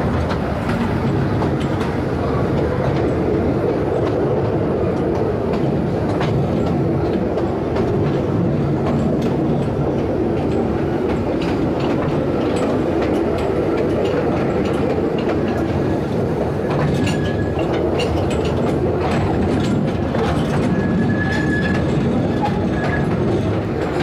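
Taipingshan Bong Bong narrow-gauge forest train running steadily, heard from on board: a continuous rumble with wheels clicking over the rails and a couple of brief high wheel squeals, about 17 and 21 seconds in.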